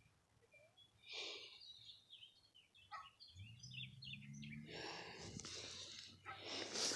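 Faint outdoor background with birds chirping in short high notes, and a low steady hum coming in about three seconds in.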